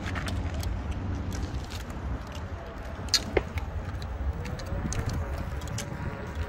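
Wind rushing over the microphone and low rumble from a Veteran Sherman electric unicycle riding on asphalt. A faint electric-motor whine rises slightly about four seconds in and then holds steady. Scattered sharp clicks come through, the loudest a little over three seconds in.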